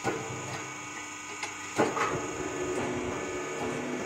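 Truck tyre-changing machine running with a steady motor hum, broken by a few sharp metallic knocks, the loudest about two seconds in, as the tyre shifts on its rim.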